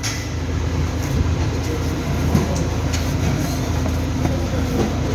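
Loud steady mechanical running noise with a deep rumble.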